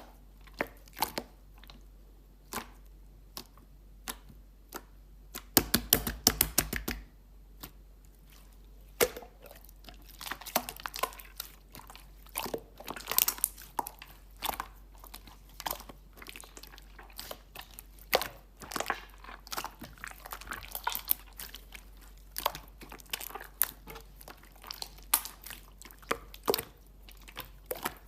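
Clear slime being squished and stretched by hand, giving off irregular sticky clicks and pops, with a quick run of crackling pops about six seconds in.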